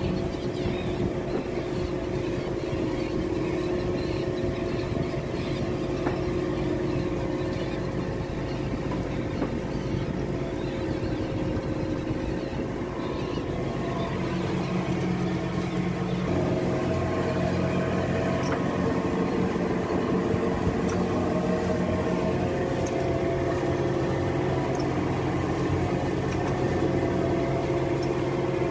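Fishing boat's engine running steadily, a constant hum whose pitch shifts and grows a little louder about halfway through.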